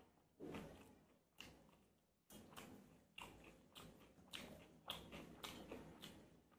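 Faint close-up chewing of a mouthful of roti with aloo gobhi sabji, a string of soft irregular strokes about one or two a second.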